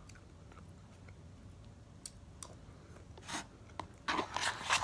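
Faint chewing of fried rice, a few small clicks, then about four seconds in a plastic spoon scraping and rubbing against the inside of a foam takeout container.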